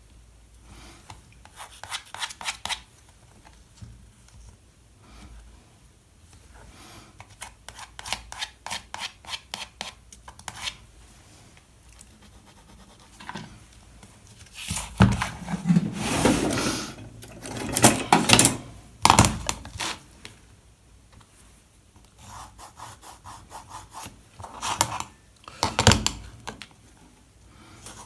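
Hand-working on a small wooden workpiece: bursts of quick rubbing and rasping strokes, like filing or sawing, with a louder stretch of handling and knocks in the middle.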